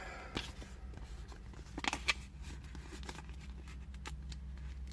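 Faint clicks and rustles of hands handling a sheet of stickers and small Playmobil plastic parts, with a few sharp ticks around two seconds in, over a steady low hum.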